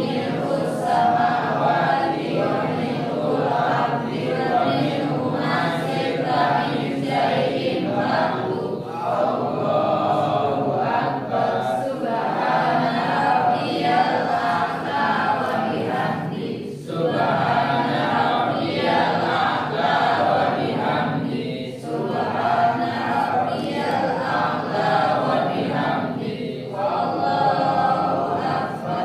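A group of students reciting Arabic in unison, a continuous group chant with short breaks between phrases every few seconds.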